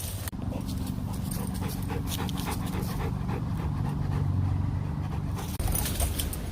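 Labrador retriever at play making a low, drawn-out vocal sound that stops about five and a half seconds in, over a low wind rumble on the microphone.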